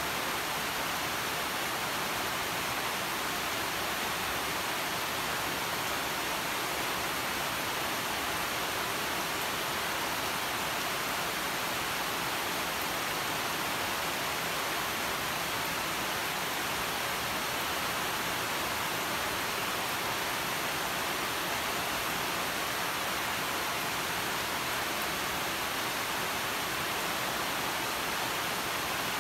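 Steady rain falling on garden vine leaves: an even hiss with no separate drops or thunder standing out.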